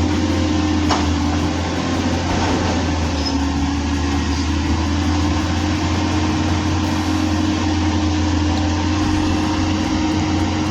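Doosan excavator's diesel engine running steadily with a low hum, a faint click about a second in.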